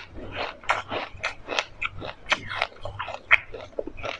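Close-miked chewing of a mouthful of dry sesame seeds: a dense, irregular run of small crisp crunches and crackles, several a second.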